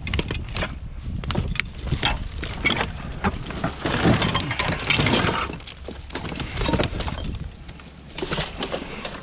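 Repeated cracking, knocking and clattering of scrap being broken apart, building to a dense burst of breaking about four seconds in and another short cluster near the end.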